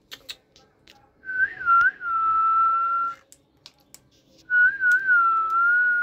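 Two long whistled notes, each opening with a quick warble and then held steady for about two seconds, with a breathy hiss around the tone. A few light clicks come just before them.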